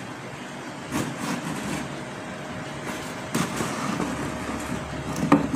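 A small model shipping container being handled and set into a cardboard model ship's hold, with a few light knocks and scrapes over a steady background hum.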